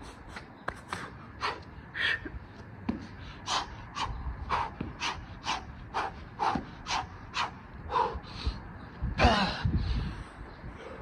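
A man breathing hard and fast, out of breath from burpees: short sharp breaths about two a second, then one longer, louder voiced breath near the end.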